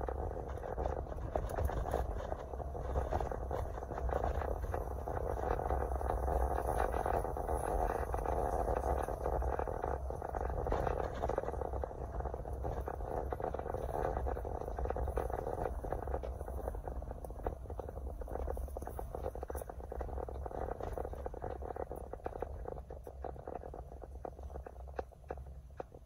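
Road and engine noise inside a moving car's cabin: a steady low rumble under a rough hiss, with many small clicks and rattles, getting quieter near the end.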